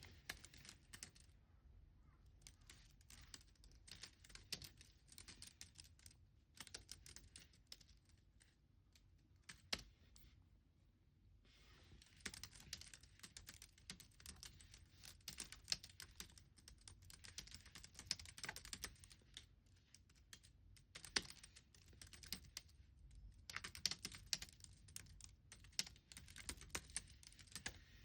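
Typing on a computer keyboard: quick runs of keystrokes broken by short pauses of a second or so.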